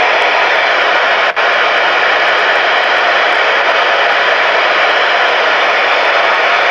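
Steady hiss of open-squelch static from a CB radio's speaker, with no station answering the call. There is one very brief dropout a little over a second in.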